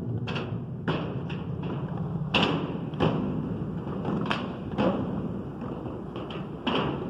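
Skateboard wheels rolling on concrete, a steady rumble broken by about ten sharp clacks and thuds of the board hitting the surface.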